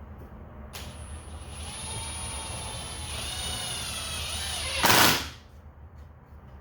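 Hammer drill driving a three-inch deck screw into treated lumber. Its motor whine starts under a second in and shifts in pitch under load for about four seconds, then ends in a short, loud burst of noise a little after halfway.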